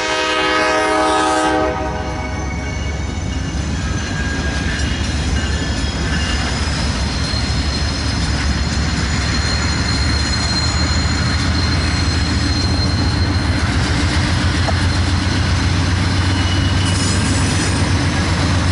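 Locomotive air horn ending a blast about two seconds in. Then a string of Norfolk Southern diesel locomotives running light in a low, steady rumble that grows louder as the units pass.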